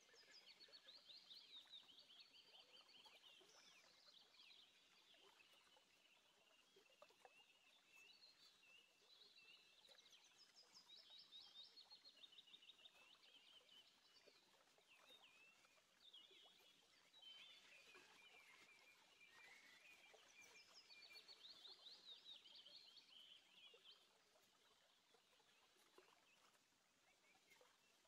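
Faint chirping and quick trills of small birds, repeating on and off, with a few faint clicks.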